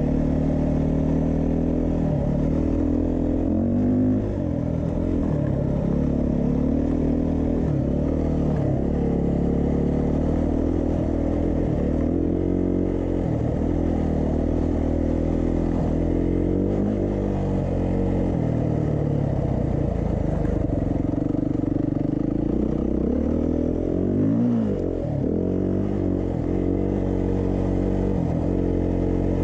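Beta 390 RR-S single-cylinder four-stroke enduro engine under way, its revs rising and falling again and again as the throttle opens and closes, with short drops in pitch between pulls and a deeper dip and climb back up near the end.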